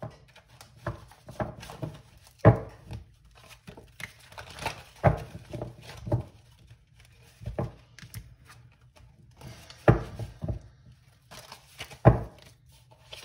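Tarot cards being shuffled and handled, with scattered sharp taps and knocks of the cards against the table, the loudest about two and a half, five, ten and twelve seconds in.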